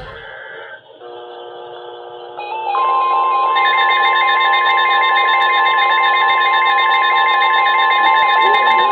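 Weather radio emergency alert tones for a new warning, a special marine warning: several steady electronic tones come on about a second in, then a strong single steady tone near 1 kHz, the typical attention tone, joins about three seconds in, with a rapidly alternating pair of beeping tones around it.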